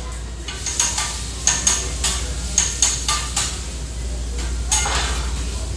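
Metal spatula clanking and scraping on a flat-top griddle: about seven sharp clanks spread through, over a steady low hum.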